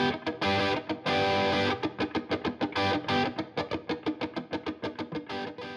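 Intro music: an electric guitar with distortion playing a quick run of picked notes broken by a few held chords, fading out near the end.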